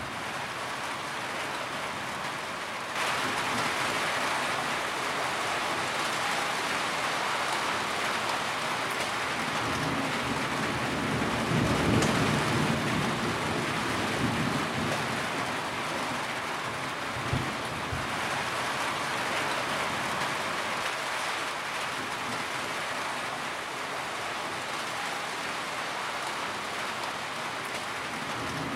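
Rain drumming on a tin roof, a dense steady patter that grows heavier about three seconds in. A low rumble swells near the middle, with a few sharper knocks.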